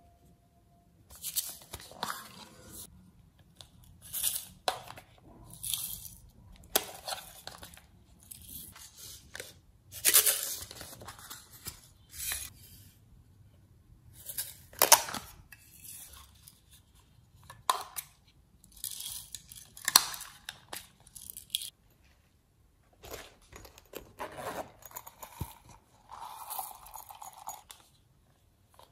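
Plastic toys and packaging being handled: a run of short rustling, crinkling bursts, with a few sharp clicks about halfway through.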